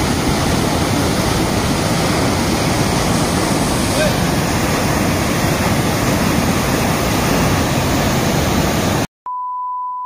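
Koel river in flood rushing over rock shelves at a waterfall: a steady, loud rushing roar of fast, churning water. About nine seconds in it cuts off abruptly and is replaced by a steady high beep, a TV test-pattern tone.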